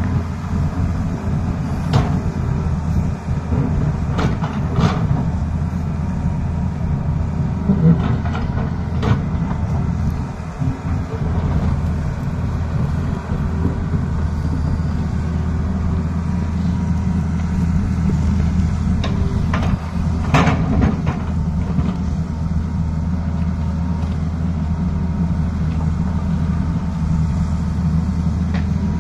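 Tata Hitachi 220 excavator's diesel engine running steadily as the machine digs, with occasional sharp knocks as the bucket strikes rock and soil.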